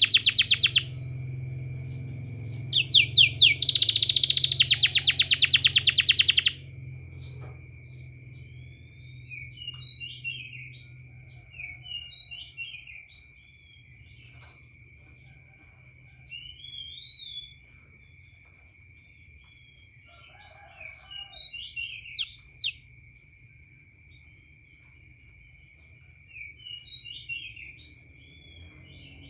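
Domestic canary singing: loud, fast rolling trills at the start and again for a few seconds, then softer scattered chirps and twitters. A steady thin high tone runs under the quieter part.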